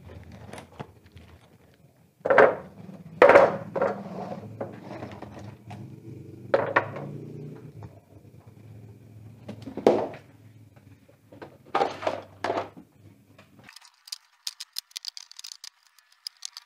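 Aluminium 'frog-eye' LED backlight strips clattering and knocking together as they are handled, a series of sharp metallic knocks with a short ring, the loudest a few seconds in. A low steady hum runs underneath and stops shortly before the end.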